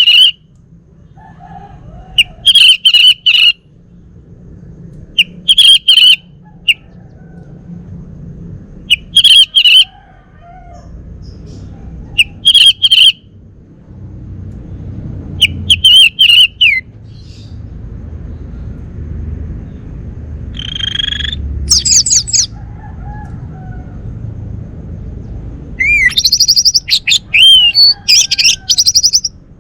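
Male orange-headed thrush singing: a loud, short, buzzy phrase repeated about every three seconds, then near the end a longer, varied phrase of rising and falling whistled notes.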